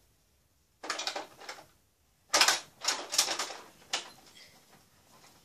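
A few short rustling and scuffing noises close to the microphone, the loudest about two and a half seconds in, with a sharp click near four seconds; hands at work near the mic rather than speech.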